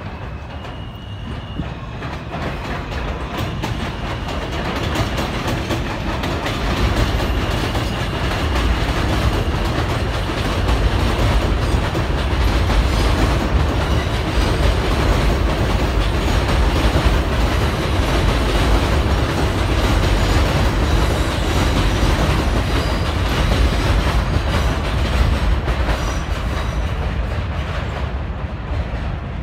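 New York City subway Q train running along an elevated track. The rumble grows louder over the first several seconds as it approaches, stays loud as it passes, and eases off near the end.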